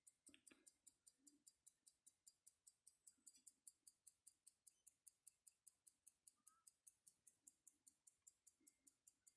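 Longines 19.71N pocket watch movement ticking: faint, sharp, even ticks at about five a second, the movement running steadily.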